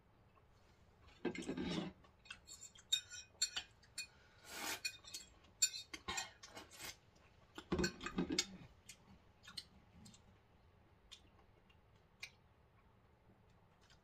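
Metal forks clicking and scraping on glass plates as fruit is cut and eaten, with a few louder eating noises about a second and a half in, around four and a half seconds, and again about eight seconds in.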